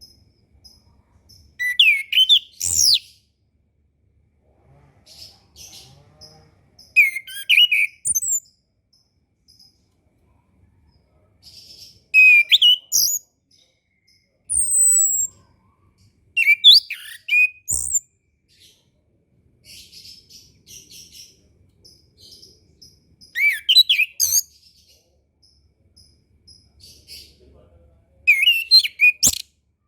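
Chestnut-capped thrush (anis kembang) singing: six short phrases of loud, clear whistled notes that glide up and down, about every five seconds, with soft scratchy twittering between them. There is a single sharp click near the end.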